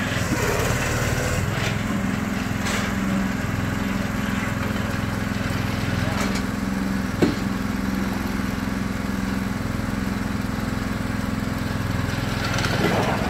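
Small engine of an engine-driven mini monkey hoist running steadily while the hoist lifts a load, with a few sharp metal knocks, the loudest about seven seconds in.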